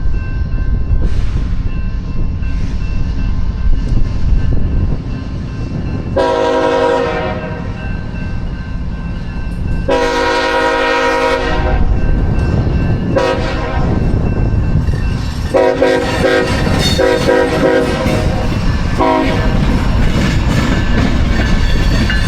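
Freight train running past with a steady low rumble while a diesel locomotive's air horn sounds a series of blasts. There are two long blasts about six and ten seconds in, a short toot near thirteen seconds, then a longer stretch of horn near the end.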